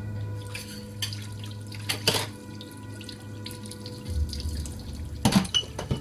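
Water running from a tap into a sink, with a few knocks and clatters, the strongest about two seconds in and near the end, over a low steady hum.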